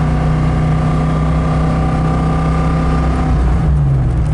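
Engine of a race-prepared 1994 Ford Mustang Bondurant school car running steadily under way, heard from inside the cabin. A little over three seconds in, the revs dip and then pick up again as a gear is shifted.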